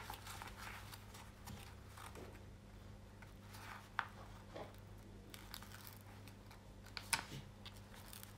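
Faint rustling and a few sharp clicks from a rolled diamond-painting canvas being handled, with its plastic cover, over a steady low electrical hum.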